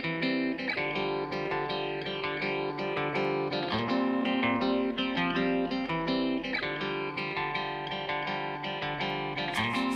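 Background music: plucked guitar notes in a steady, regular rhythm.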